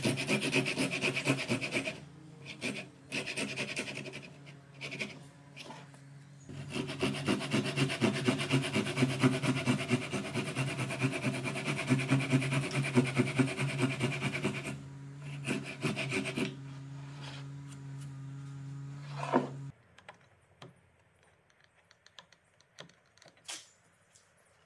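Fine-toothed hand saw cutting across a softwood board in quick, even back-and-forth strokes, in two long runs with a pause of a few seconds between them. A steady low hum runs under the sawing and cuts off with a knock a few seconds after the strokes stop, leaving near silence.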